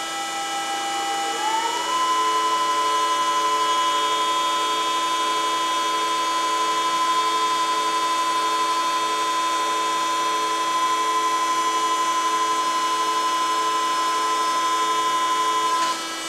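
Denn RPI 300 CNC hydraulic spinning lathe running a cycle: a steady machine whine that rises in pitch and gets louder about a second and a half in, then holds, over a lower tone that pulses evenly. The whine cuts off shortly before the end as the cycle finishes.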